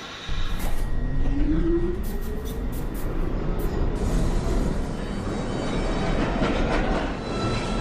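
Subway train pulling out of the station, starting suddenly and loud, its traction motors whining up in pitch as it gathers speed, with a few sharp clicks from the wheels over the rails.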